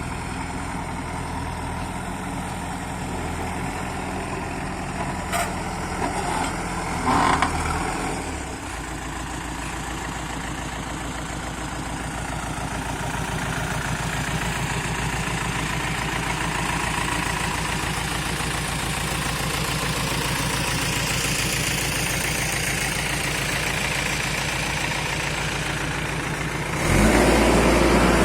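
JCB 3DX backhoe loader's diesel engine running steadily, with two short knocks about five and seven seconds in; the engine note shifts a little after eight seconds and turns suddenly louder near the end.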